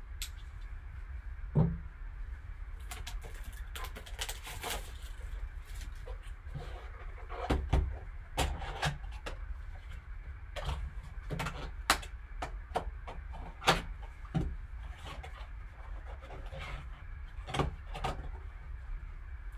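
Gloved hands opening a cardboard trading-card box and handling the card and its plastic case: scattered clicks, taps and scraping rustles, a few sharper knocks among them, over a low steady hum.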